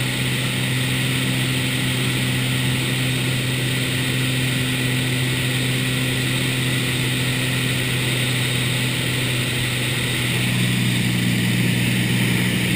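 Small single-engine airplane's piston engine and propeller droning steadily, heard inside the cabin, with a constant rush of air. About ten seconds in the drone shifts in pitch and grows a little louder.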